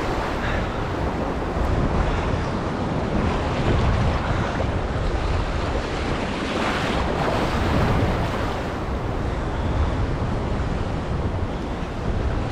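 Steady wind buffeting the microphone over the wash of waves at the water's edge, rising and falling gently in strength.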